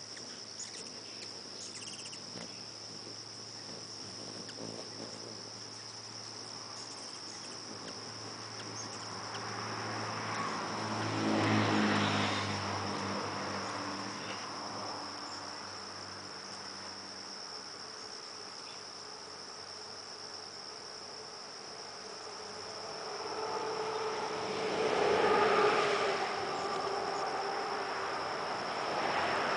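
Steady high-pitched insect trilling, like crickets, throughout, with a distant engine sound swelling and fading twice, about ten seconds in and again about twenty-five seconds in.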